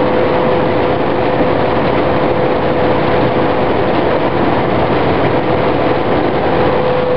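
Combine harvester running steadily while cutting wheat: a loud, even engine and machinery noise with a steady whine over it.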